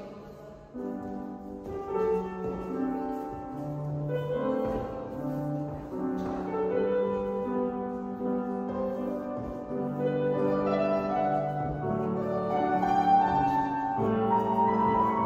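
Classical music, led by piano, playing a slow progression of held chords.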